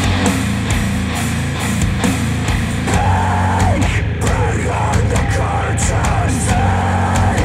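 Rock music played back through a pair of Focal Chora 806 bookshelf speakers driven by an NAD C700 integrated amplifier, picked up by microphones in the room, with a strong steady bass under the guitars.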